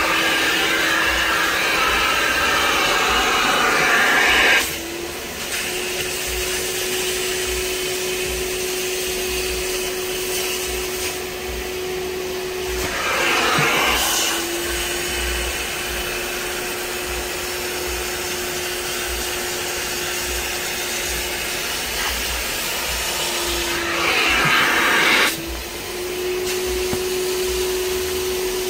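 Kärcher Puzzi 10/1 spray extractor's suction motor running with a steady whine as its hand nozzle draws dirty water out of a fabric car seat. Three times, for a few seconds at the start and briefly about halfway and near the end, a louder rush of air takes over and the whine drops slightly in pitch.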